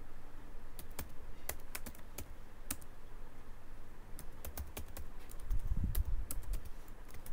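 Typing on a computer keyboard: irregular key clicks as lines of code are entered, with a brief low rumble about three-quarters of the way through.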